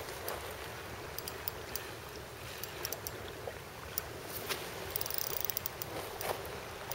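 Sea water washing steadily at the shore, with a few faint clicks scattered through it.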